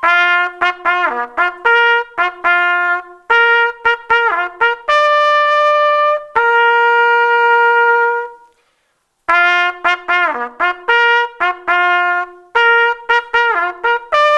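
Solo trumpet playing a phrase of short notes, several bent down and back up in pitch, then two long held notes. After a brief pause about eight seconds in, the phrase starts again.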